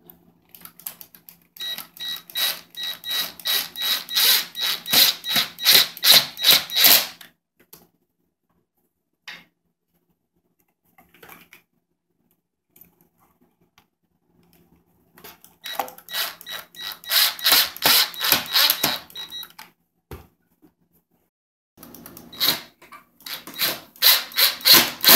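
Ridgid cordless driver sinking screws into the wooden panels of a foosball table, in three bursts of fast, even pulsing with a motor whine: a long one about two seconds in, another about halfway, and a shorter one near the end.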